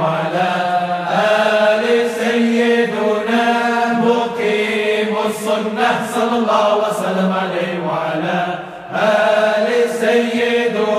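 Arabic dhikr chant: salawat on the Prophet sung in long, drawn-out melodic lines. A short break comes about two seconds before the end, and the chanting then resumes.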